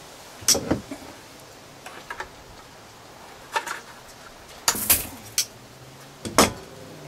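Metal wire from a coil clicking and snapping as it is handled at a plastic bucket and cut with pliers: a handful of sharp, irregular clicks, the loudest cluster about five seconds in.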